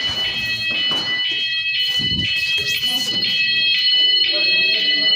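Cooper fire alarm sounder going off with a loud two-tone electronic signal that alternates pitch about twice a second.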